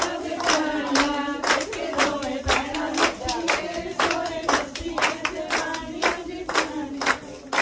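A group of women singing Punjabi boliyan in chorus to steady rhythmic hand-clapping, about two claps a second, as in a gidha.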